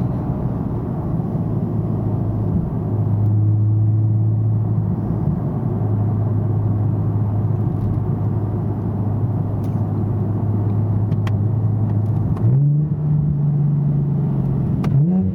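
2009 Nissan 370Z's 3.7-litre V6, heard from inside the cabin through a Fast Intentions exhaust with 18-inch carbon-fibre resonators and non-resonated high-flow cats, cruising with a steady low drone. The engine note climbs twice near the end as the revs rise.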